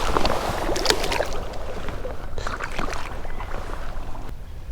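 Shallow creek water splashing and sloshing as it is stirred by wading or by hands, with sharper splashes about a second in and again about two and a half seconds in.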